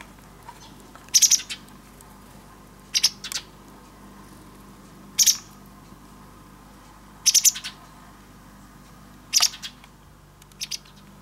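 A white wagtail calling: six short, high calls of two or three quick notes each, repeated about every two seconds.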